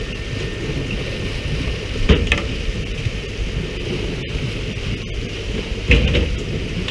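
Steady rushing noise aboard a pole-and-line fishing boat at sea: water splashing alongside the hull and wind on the microphone over a low engine rumble. Sharp knocks come about two seconds in and again near the end.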